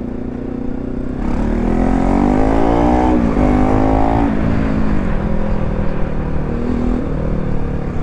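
Bajaj Pulsar NS200 single-cylinder engine accelerating under way, rising in pitch, with a brief dip at a gear change about three seconds in, then easing off about five seconds in and running steadily.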